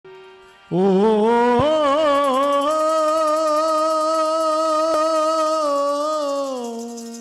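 Male devotional singer opening a Swaminarayan kirtan with one long held note over harmonium. The note comes in sharply about a second in, wavers through a few ornaments, then holds steady and fades near the end.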